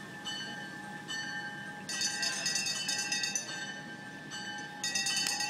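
Steam locomotive's bell ringing: metallic strikes about every half second, becoming louder and denser about two seconds in and again near the end, over a steady ring.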